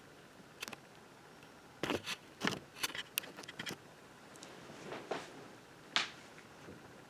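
Scattered handling noises: a few sharp clicks and knocks with short rustles, bunched together in the middle, and a last sharp click about six seconds in.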